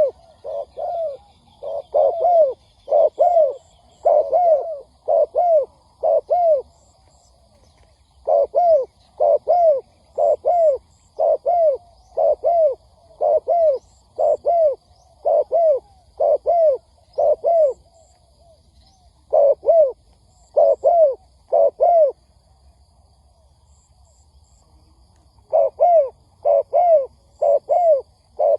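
Spotted dove cooing in quick runs of short, arched coos, about two a second. Each run breaks off for a pause of a few seconds, then starts again. This is the rapid cooing of a decoy bird used to draw in wild doves.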